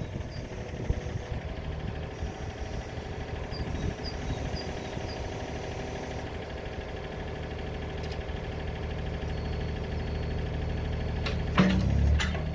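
Yanmar B37 mini excavator's diesel engine running steadily under light hydraulic work while its bucket grades gravel. A brief louder clunk and scrape comes near the end.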